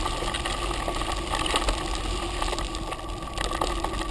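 Mountain bike rolling along a dirt trail, recorded from the bike: tyres crunching over the ground with small rattles and clicks from the bike, over a steady low wind rumble on the camera microphone.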